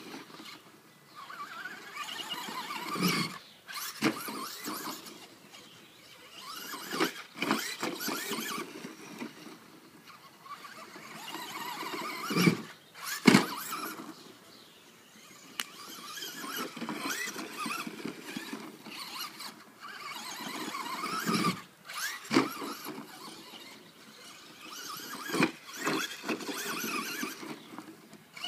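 Traxxas Slash VXL RC truck's brushless electric motor and drivetrain whining in repeated spells, the pitch rising and falling with the throttle. Several sharp knocks break in, the loudest pair about twelve to thirteen seconds in.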